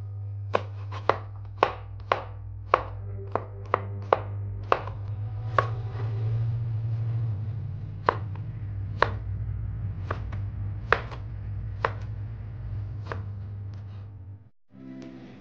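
Kitchen knife chopping on a plastic cutting board: sharp taps about two a second while slicing red chillies, slowing to about one a second while slicing a tomato, over a steady low hum. The sound drops out briefly near the end.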